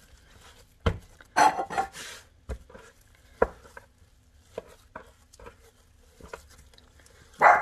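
Seitan dough being kneaded and pressed by hand on a wooden board: irregular soft thumps and knocks. The loudest bursts come about a second and a half in and near the end.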